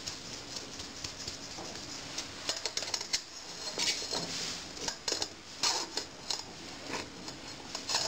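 A metal spoon scraping and pushing finely ground corn through a stainless steel wire-mesh sieve to sift it: gritty scrapes and light irregular ticks against the mesh, coming more often in the second half.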